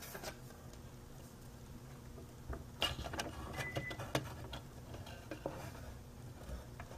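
Hard plastic model-kit parts clicking and scraping together as a deck floor piece is fitted into a boat hull, a cluster of small clicks in the middle with a short squeak, over a low steady hum.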